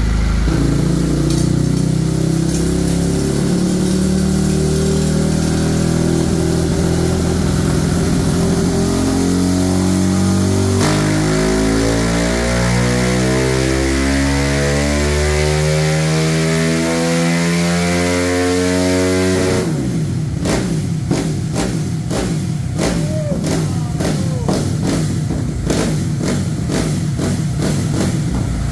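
Modified single-cylinder Honda CG motorcycle engine, bored to 70 mm and running an open exhaust, pulled hard on a dynamometer: the engine note climbs steadily in pitch under load for about twenty seconds. It then breaks into irregular pops and crackles.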